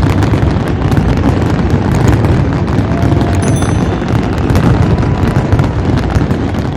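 A dense, unbroken barrage of firework bangs and crackling, the strokes packed too close to count, which fades out just after the end.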